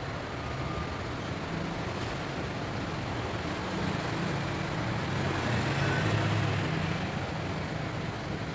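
Road traffic: a steady hiss with a vehicle's low engine rumble that swells over the middle and eases off again near the end.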